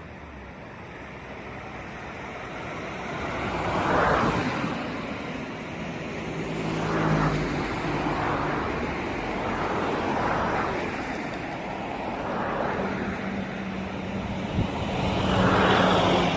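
Road traffic: a series of vehicles passing one after another, each swelling and then fading, the last and loudest near the end.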